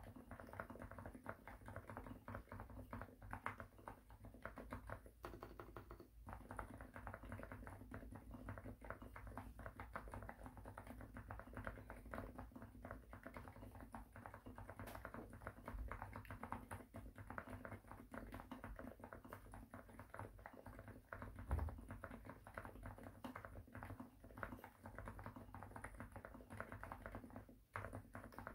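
Continuous fast typing on a Xinmeng M67 65% gasket-mount aluminium mechanical keyboard with lubed TTC Silent Bluish White silent linear switches and PBT doubleshot keycaps: quiet, dampened keystrokes in a dense, steady stream, with a brief pause near the end.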